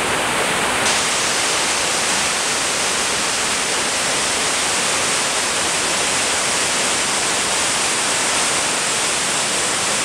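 Waterfall on the Kyngyrga river falling into a rocky pool: a steady, loud rush of water.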